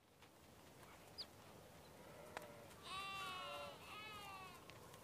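Two drawn-out, pitched animal calls in quick succession about three seconds in, the first lasting under a second and the second a little shorter, over faint background noise. A short high chirp and a sharp click come before them.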